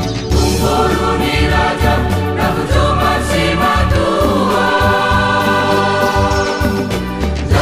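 Church choir singing a Batak wedding song in several-part harmony, over an accompaniment of steady bass notes and a light regular beat.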